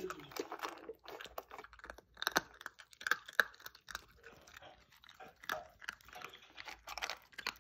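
Scottish Terrier puppy crunching and chewing dry kibble from a stainless steel bowl, a quick irregular run of sharp crunches.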